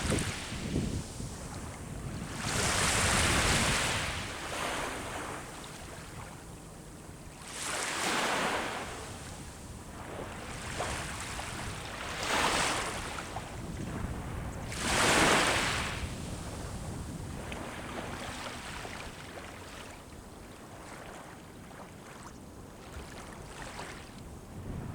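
Sea waves breaking and washing up the shore, a swell of surf hiss every few seconds, the loudest about 15 s in, then quieter wash toward the end. A low wind rumble on the microphone runs underneath.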